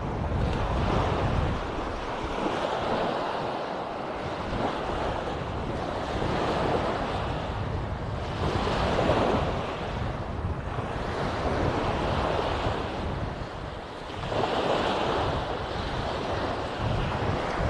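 Small sea waves breaking and washing up a sandy shore, the surf swelling and fading every two to three seconds.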